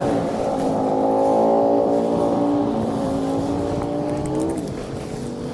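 Engine of a passing motor vehicle, a steady droning note that drops in pitch and fades about four and a half seconds in.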